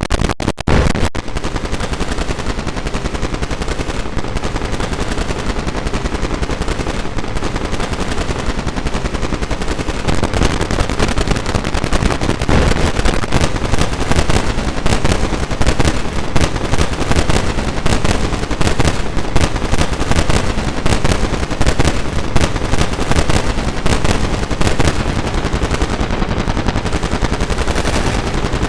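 Android phone alarm sound edited as a 'scan' of 128 overlapping, time-shifted copies that merge into a loud, dense rattle of rapid clicks with no tune left, swelling slightly about ten seconds in.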